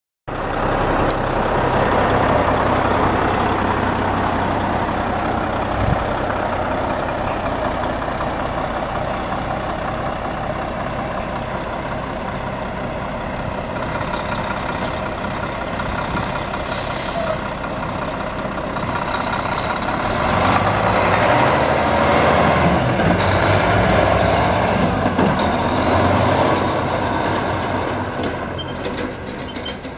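Volvo D13 12.8-litre inline-six diesel of a semi truck running steadily, with a brief hiss about 17 seconds in. The engine grows louder for several seconds past the twenty-second mark.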